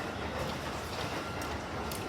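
Keikyū electric commuter train moving at the station: steady running noise with a few light clicks.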